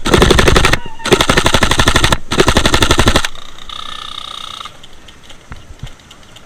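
Airsoft gun firing on full auto: three long bursts of rapid, evenly spaced shots, about a second each with short breaks between them, stopping about three seconds in.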